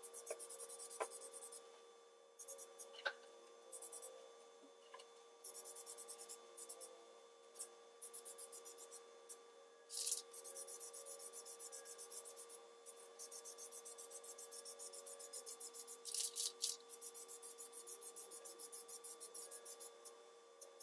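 Flex Seal liquid-rubber aerosol can spraying a coat in a series of hissing bursts, each from about half a second to a few seconds long, with short pauses between.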